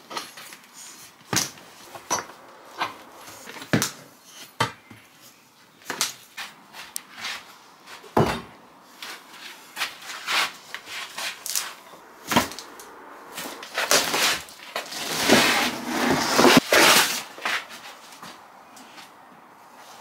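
Interior demolition work on an old cottage's walls: scattered knocks and clatters of wood and board being handled, then a longer stretch of tearing and scraping about fifteen seconds in, as wall covering is pulled away.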